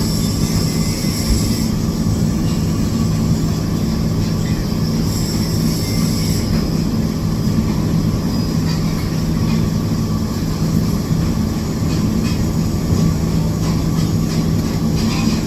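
Stick welding: the arc's steady hiss and crackle over a low, steady hum, with brighter hiss near the start and again about five seconds in.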